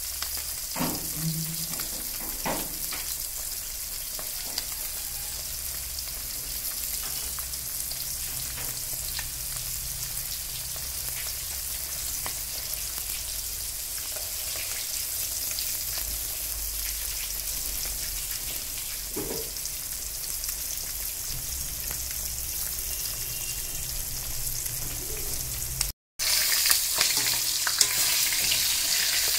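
Pieces of spice-coated kalla fish shallow-frying in hot oil in a kadai, with a steady sizzle. The sound drops out briefly near the end and comes back louder.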